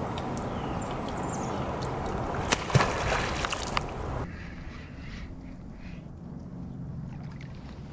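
Water sloshing and lapping, with a few sharp clicks between about two and a half and four seconds in; then, after a sudden drop in level, fainter water lapping against an inflatable kayak's hull.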